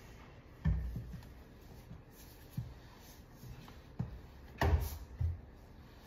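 A string spin mop being worked over a hardwood floor, giving a few short, dull knocks and thuds. The loudest is a double thud about three-quarters of the way in.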